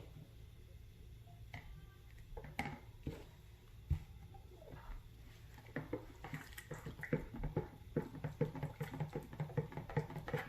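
A spoon in a pot of hot infusion: a few scattered knocks, then from about six seconds in quick repeated stirring strokes, several a second, as honey is stirred into the liquid.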